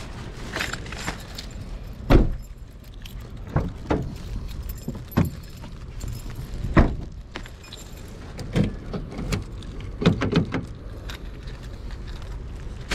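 Irregular knocks and thumps from someone handling things and moving about at a parked car, the loudest about two seconds in and again near seven seconds, with light jingling in the first second or so, over a low steady rumble.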